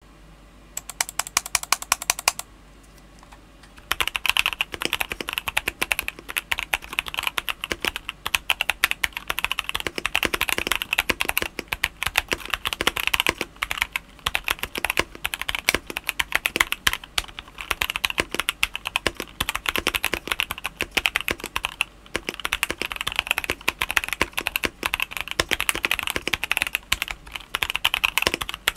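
Typing on a Sikakeyb SK1 Castle 60% mechanical keyboard (CNC aluminium case, FR4 plate) with NovelKeys Box Cream linear switches and PBT keycaps: a fast, steady stream of keystroke clacks. A short burst comes first, then a brief pause, then continuous typing.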